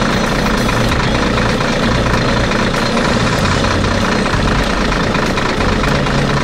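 Heavy machine engine running steadily, with a dense grinding noise as a rotary drill head bores into rock.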